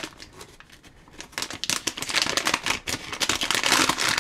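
A metallised anti-static shielding bag crinkling and crackling as it is pulled open by hand. It is quieter for the first second or so, then a dense run of crinkling lasts to the end.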